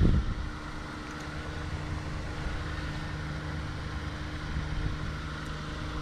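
Steady low machine hum with a constant pitch, like a motor running nearby, with a few faint small clicks as copper wire ends are bent into loops with wire strippers.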